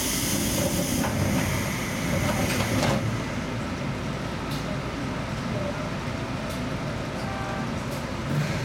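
Seibu 2000 series electric train standing at a platform: compressed air hisses out, stopping about three seconds in, then the stationary train's equipment hums low and steady, with a few faint clicks and a short beep near the end.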